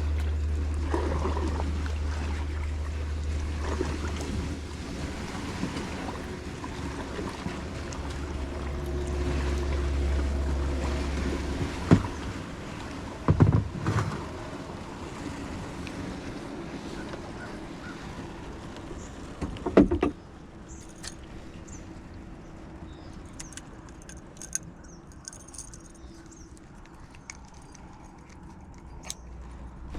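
Kayak out on the water: a low wind rumble on the microphone through roughly the first twelve seconds, a few sharp knocks about twelve, fourteen and twenty seconds in, and faint bird calls in the quieter second half.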